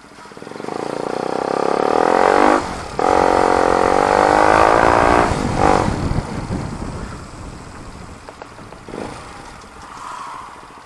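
Motorcycle with a newly replaced muffler accelerating hard, its exhaust note loud and rising in pitch. The note dips briefly about two and a half seconds in and again near six seconds, then fades away.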